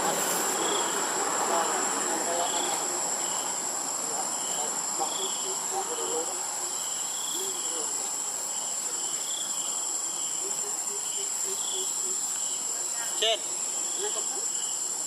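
Steady, high-pitched insect drone, with a softer chirp repeating about twice a second beneath it. A single sharp click comes near the end.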